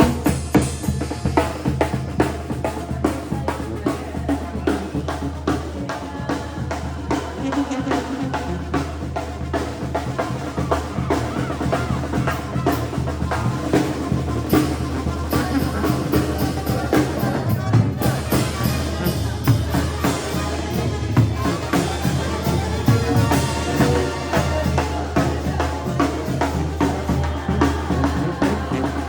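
A banda playing music, with a steady beat on bass drum and snare drum over sustained low notes.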